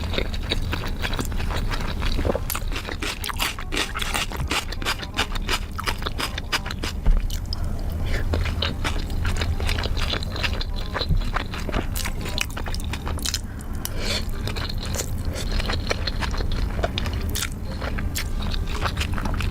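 Close-miked eating sounds: chewing and biting with many small wet clicks and scraping noises, over a steady low hum.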